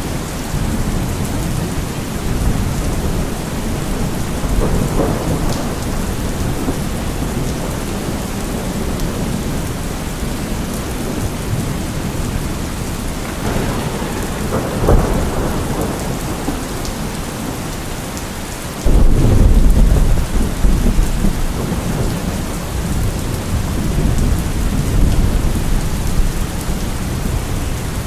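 Steady rain falling during a thunderstorm, with rolls of thunder rumbling through it: one swells with a sharp crack about halfway through, and a louder low rumble comes in abruptly about two-thirds of the way in.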